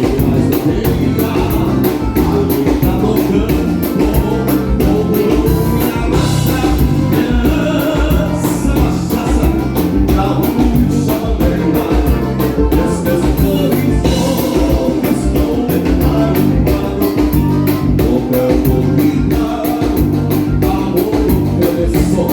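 Live gaúcho dance band playing a vanera, with singing over a steady drum beat.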